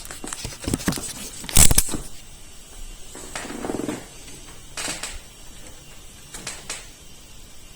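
Handling noises: a series of sharp clicks and knocks, the loudest about a second and a half in, with a brief scraping rustle a couple of seconds later and a few lighter clicks near the end.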